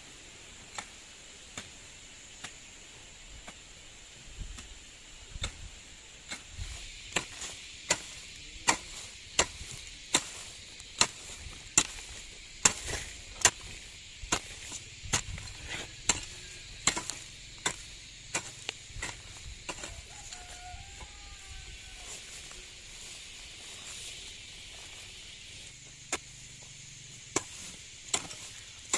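Repeated sharp chopping strikes of a hand tool, at an uneven pace of about one or two a second. They are faint at first, come thick and loud through the middle, and thin out toward the end.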